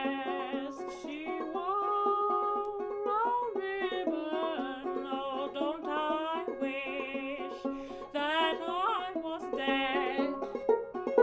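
A woman sings an old-time folk melody with a wavering vibrato, accompanying herself on a small, banjo-like plucked string instrument. Near the end the voice stops and the instrument plays on alone with quicker plucked notes.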